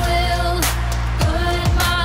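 Upbeat pop-style song with a steady drum beat and bass, and singing.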